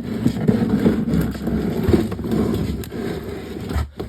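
Continuous scraping and rustling with frequent small knocks around a bucket holding a just-caught squirrel, which cuts off abruptly near the end.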